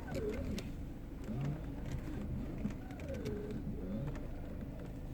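Mercedes C180 steering squeaking and whining in repeated short squeals that bend up and down in pitch, over a steady low engine hum.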